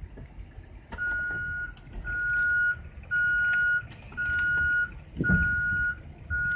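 Electronic back-up alarm of a reversing vehicle: a steady high beep of even pitch, about one long beep a second, starting about a second in.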